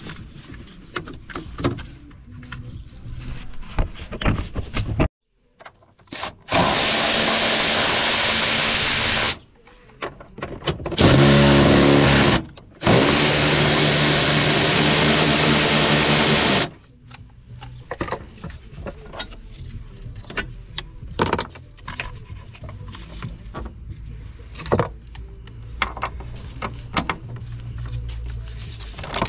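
Metal clicks and knocks of a socket on a long extension bar working bolts in a car's engine bay, broken by three loud bursts of a power tool running, each lasting about two to four seconds, in the middle stretch.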